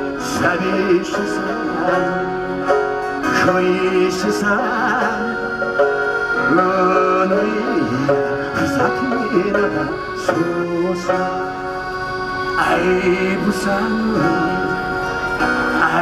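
Instrumental passage played live on piano accordion, strummed acoustic guitar and a small plucked string instrument, the accordion's sustained notes running under the plucked and strummed chords.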